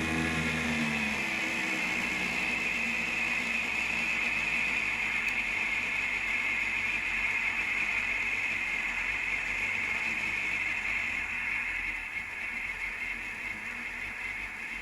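Steady mechanical whirring hiss of a running machine, easing slightly near the end.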